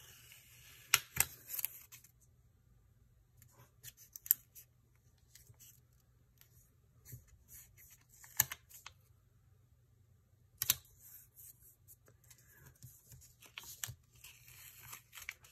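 Paper stickers being handled on a planner page: light rustling of paper and a handful of sharp clicks and taps as a sticker is peeled, positioned and pressed down by hand.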